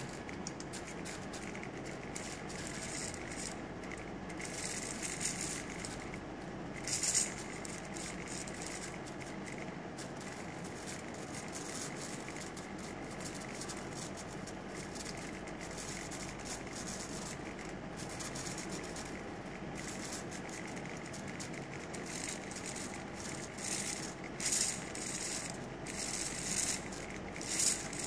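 Small hobby servo motors whirring and rattling in short bursts as they are turned by remote control. A couple of bursts come about five and seven seconds in and a cluster of them comes near the end, over a steady low hiss.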